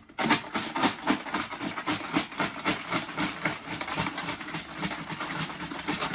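About forty numbered wooden pop sticks rattling as they are shaken in a mop bucket: a dense, continuous clatter of clicks.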